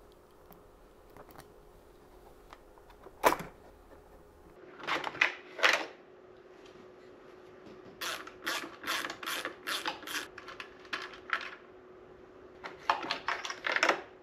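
Clicks and clatter of a Can-Am Spyder F3's stock plastic taillight unit being worked loose and handled: one sharp click about three seconds in, then several bursts of quick rattling clicks.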